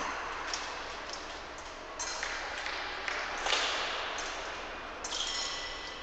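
Épée blades clinking against each other several times: sharp metallic pings, some ringing on briefly.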